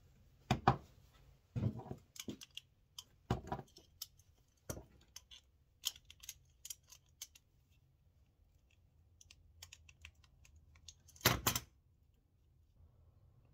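Irregular clicks and knocks of small metal parts being handled as a small motorized-bike carburetor is taken apart by hand, with sharp knocks in the first few seconds, lighter clicking midway and a louder clatter near the end.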